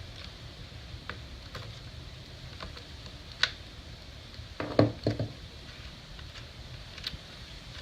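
Scattered light clicks and a short cluster of louder knocks about five seconds in, from hands working the hardware of a battery being fitted.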